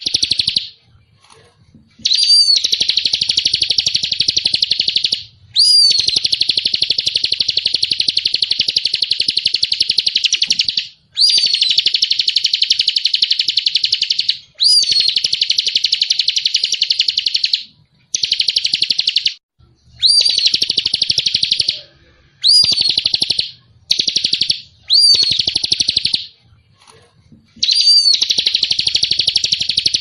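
Small songbird singing: rapid, continuous high twittering in phrases one to five seconds long, each starting with a short sweeping note, about ten phrases with brief pauses between them.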